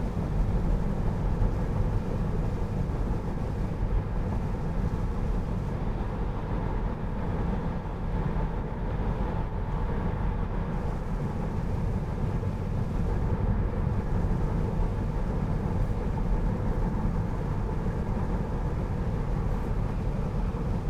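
Steady road and tyre noise inside the cabin of a 2020 Tesla Model 3 driving on a wet highway, a low, even rumble with no engine sound.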